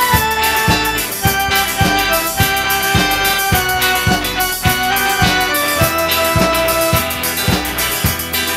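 Rock band playing an instrumental break of the song: drum kit keeping a steady beat under held melody notes.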